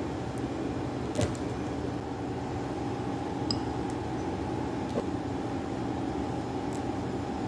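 A steady machine hum, like a household appliance or fan running, with a few short, light clicks as kiwi slices are set into a ceramic bowl.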